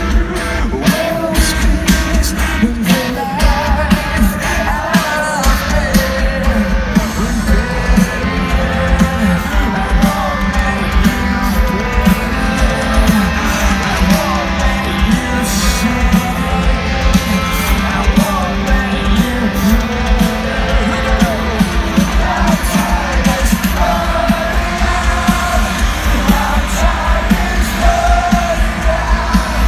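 Live rock band playing at a stadium concert, heard from within the crowd: heavy bass, drums and guitar with a steady beat under sung lead vocals.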